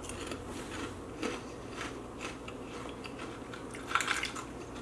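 Close-up chewing and crunching of Flamin' Hot Cheetos: irregular crisp crunches, with a louder cluster of crunches about four seconds in.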